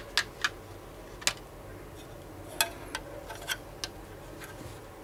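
A run of about eight sharp, irregular clicks and light taps of small hard objects being handled, the loudest about two and a half seconds in.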